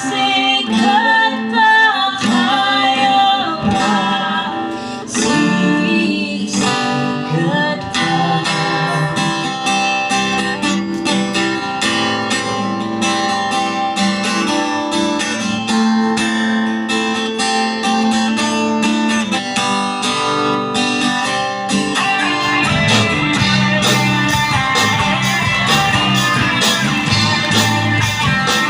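Live band playing a song, with guitar to the fore; the arrangement fills out and gets denser about three quarters of the way through.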